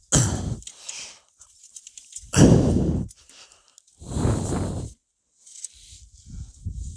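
A broom sweeping snow off a solar panel in three long strokes, followed by softer scraping and rustling.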